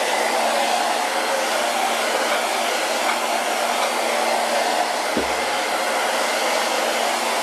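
Hair dryer blowing steadily, drying wet paint on a wooden board, with a brief low thump about five seconds in.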